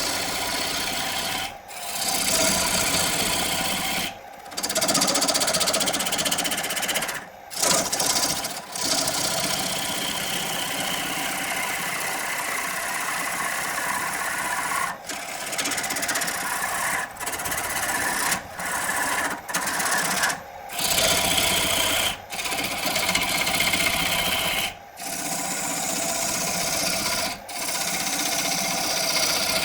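Power tool running steadily while working wood, a motor hum under grinding or cutting noise, broken by many abrupt drop-outs.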